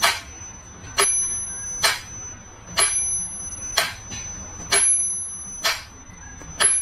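Sharp strikes repeating at a steady pace of about one a second, several of them followed by a thin, high, bell-like ring.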